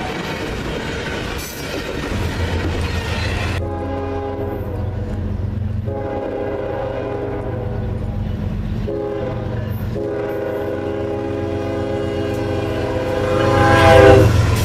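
Freight diesel locomotive's air horn sounding the grade-crossing pattern: two long blasts, a short one, then a final long blast that swells loudest, over the steady low rumble of the locomotive and its rolling train.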